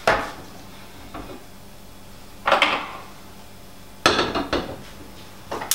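Metal saucepan and gas hob clattering while a burner that is slow to catch is being lit. There is a sharp knock at the start, then short bursts of clatter about two and a half seconds and four seconds in.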